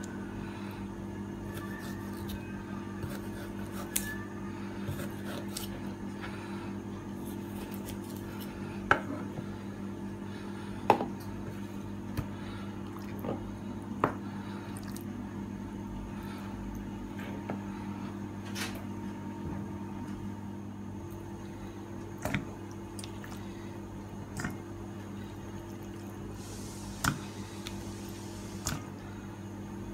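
Knife cutting and scoring raw chicken on a cutting board: wet squishing of the meat and scattered sharp knocks of the blade against the board, over a steady low hum in the background.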